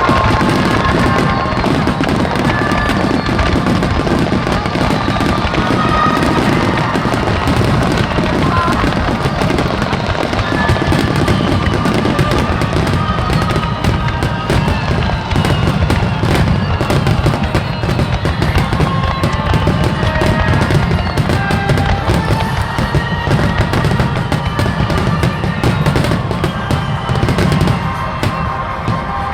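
Fireworks finale barrage: shells bursting in rapid, continuous succession with a dense rumble of overlapping bangs and crackle, easing slightly near the end.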